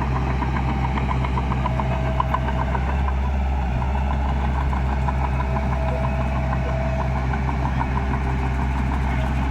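Heavy diesel engine of earthmoving machinery running steadily, with a regular light ticking of about four or five ticks a second over a low, even hum.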